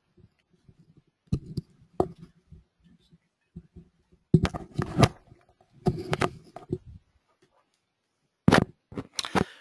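Microphone handling noise: scattered knocks, clicks and rustles in short clusters, as the mic is passed over and set up for the next speaker.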